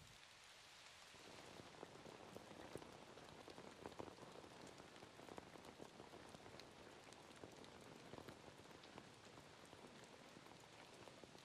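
Light rain falling, faint, with many scattered drops ticking.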